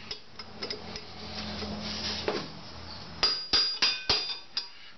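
Hammer blows on a hand impact driver seated in a motorcycle brake-disc bolt head: about five sharp metal strikes in the second half, each ringing briefly. The blows are meant to break loose a bolt held with blue Loctite.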